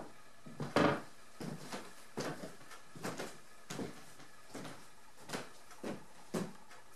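Footsteps on a wooden plank floor: a dozen or so separate knocks of shoes on the boards, about one to two a second, as a man walks.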